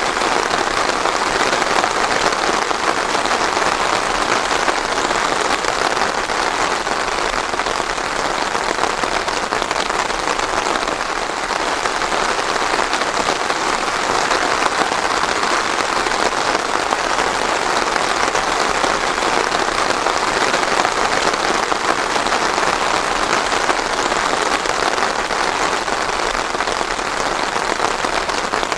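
Steady rain falling on a surface, an even hiss of many drops with no thunder.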